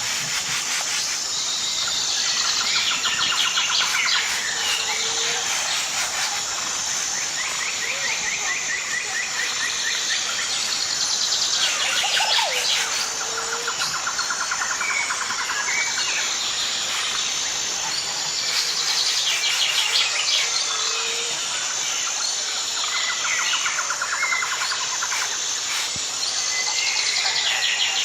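Woodland songbird singing, a phrase of rapid trilled notes repeated several times at intervals of a few seconds, over a steady high-pitched hiss.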